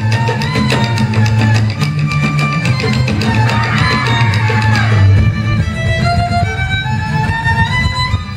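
Malay dance music from a live ensemble: a violin carries a sliding melody over drums and a deep bass line, with a steady beat. In the last few seconds the melody climbs in steps.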